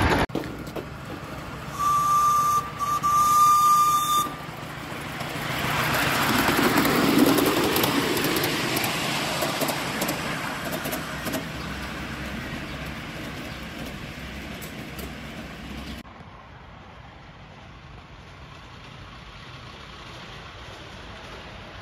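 Steam whistle on a 5-inch gauge 0-4-2 live steam locomotive blown twice, a short blast then a longer one, with steam hiss. Then the miniature train runs past, its noise swelling and fading, and continues more faintly.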